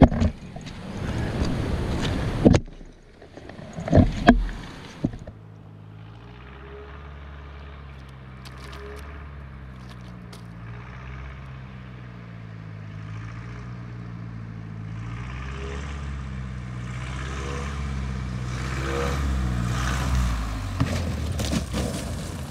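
Single-engine bush plane flying in low and landing on a gravel river bar: a steady propeller-engine drone that wavers slowly in pitch and grows louder over some fifteen seconds. For the first few seconds, wind rushes across the microphone with a couple of sharp bumps.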